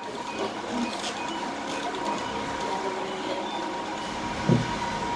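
Glass-bottom boat's engine running steadily under way, with a single dull thud about four and a half seconds in.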